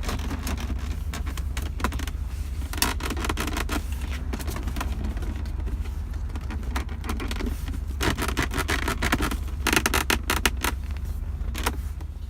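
Armrest of a Jeep Grand Cherokee ZJ creaking repeatedly in quick irregular clusters, busiest near the end, over the vehicle's steady low rumble.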